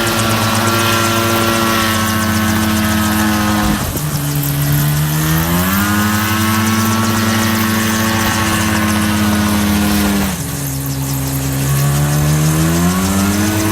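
Small grass-cutter engine on a homemade helicopter running at high speed, throttled down twice and revved back up, its pitch sliding down sharply and then climbing again each time.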